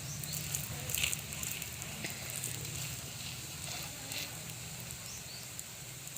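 Adai batter flatbread sizzling on a hot pan in freshly added fat: a soft, steady frying hiss with a few brief crackles about one, two and four seconds in, over a low steady hum.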